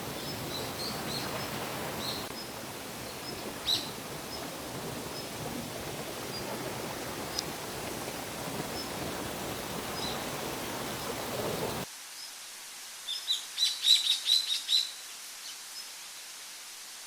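Steady rush of a clear, shallow forest river with small birds chirping faintly over it. About twelve seconds in the water noise cuts off sharply and a bird gives a quick run of loud chirps.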